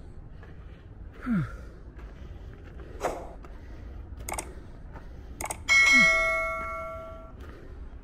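A bright bell-like ding, the notification chime of a subscribe-button animation, rings out about two-thirds of the way through and fades over a second or so. Two short downward-sliding blips come before it and with it. Under these run crunchy footsteps on a gravel trail, about one step every second and a bit, and a low wind rumble.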